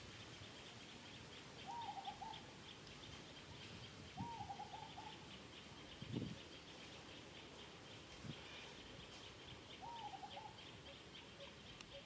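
Three short warbling calls, each about half a second, rising and then wavering, over a steady high pulsing chirr, with a few soft thumps in between.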